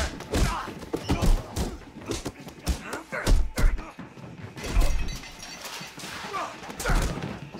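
A violent scuffle: a rapid string of heavy thuds and knocks as bodies hit furniture and walls, broken by grunts and short cries from the people fighting.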